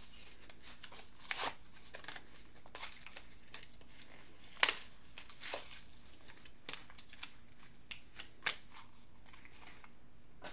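Irregular crinkling, rustling and sharp clicks of plastic packaging and small makeup items being handled, with one louder click about four and a half seconds in; it dies away near the end.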